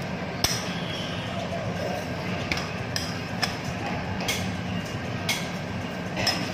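Metal spatula clinking and scraping on a flat steel teppanyaki griddle while oil is spread across it: sharp metallic clicks about once a second, over a steady background hum.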